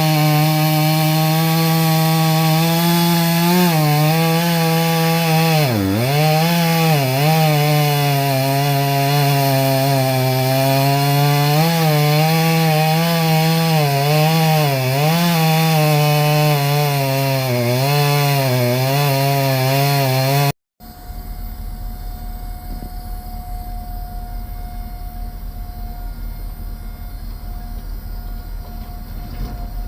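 Chainsaw cutting wood, its engine note dipping and recovering again and again as the chain bites into the cut. About two-thirds of the way through it cuts off suddenly, giving way to a steady low rumble with a faint steady whine.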